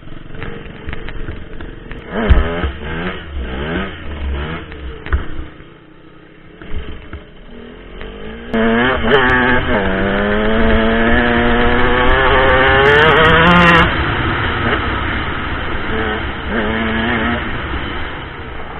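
Dirt bike engine under the rider, the throttle opened and closed in short rises and falls, with a sharp knock about two seconds in. From about nine seconds in it makes one long pull, its pitch climbing steadily for about five seconds before the throttle closes.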